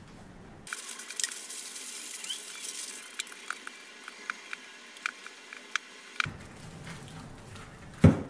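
Aluminum foil crinkling and crackling as hands squeeze and roll it into a ball, with many sharp little crackles; it starts about a second in and stops about six seconds in. A single dull thump near the end is the loudest sound.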